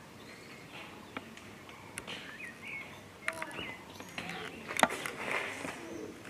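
Birds chirping in the surrounding trees: scattered short, rising and falling chirps over outdoor background noise. Several sharp clicks are heard, with a loud one a little under five seconds in.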